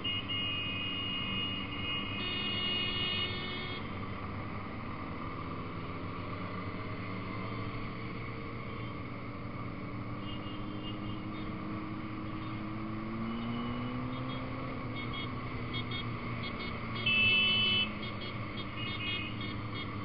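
Motorcycle engine running at road speed, heard from on board with wind noise, its pitch rising as it speeds up about two-thirds of the way through. A high, bright tone sounds for about three seconds near the start and again, louder and for about a second, near the end.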